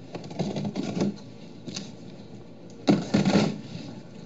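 Cardboard boxes and packaging being handled: two bursts of rustling and scraping, one near the start and a second about three seconds in.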